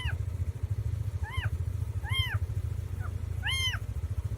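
An animal gives five short, high, meow-like calls, each rising then falling in pitch, over a steady low, rapidly pulsing rumble.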